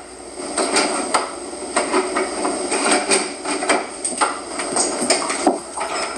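Kitchen clatter: a string of short knocks and clinks of dishes, cups and utensils being handled.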